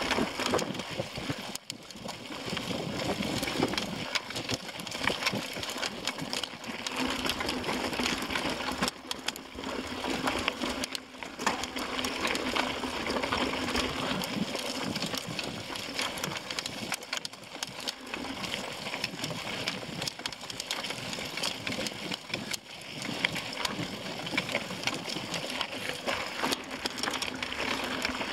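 Mountain bike ridden over rocky dirt singletrack: tyres crunching over gravel and loose stones, with the bike rattling constantly over the bumps.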